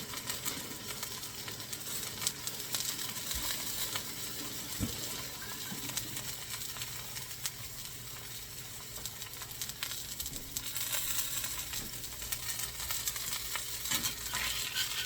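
Homemade veal searing in hot oil on a griddle: a steady sizzle with scattered crackles and pops, getting a little louder about two-thirds of the way in.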